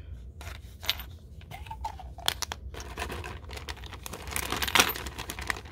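Clear plastic packaging and a plastic bag crinkling and rustling as hands handle a small plastic bit container, with scattered small clicks. The rustling is thickest from about three seconds in.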